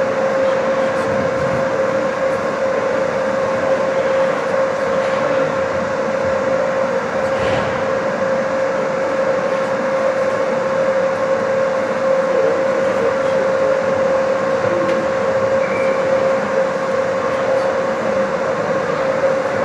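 Steady mechanical drone of an indoor ice rink's machinery, a constant hum over an even rushing noise, with a faint knock now and then.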